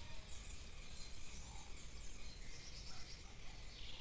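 Birds singing: scattered short, high chirps and calls over a steady low background noise.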